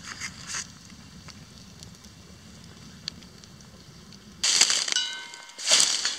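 A faint low rumble, then a loud crunching, rustling noise about four and a half seconds in, lasting about a second, and another near the end.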